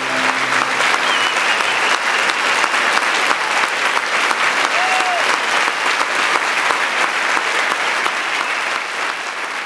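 A hall audience of over a thousand people giving a standing ovation: dense, steady applause that eases off slightly near the end.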